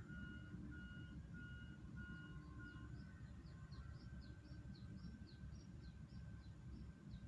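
A bird calling a run of short, high, falling chirps, about two to three a second, starting about two seconds in, over a faint low rumble. Until about three seconds in, a faint pulsing tone repeats about twice a second.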